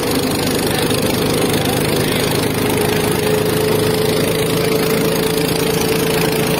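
Farm tractor's diesel engine running steadily under load, a constant drone, with its wheels churning and splashing through floodwater.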